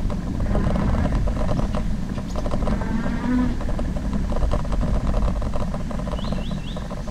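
An e-bike riding a dirt trail: a steady rumble of tyres and wind on the camera's microphone, with constant small rattles and knocks as the bike runs over bumps.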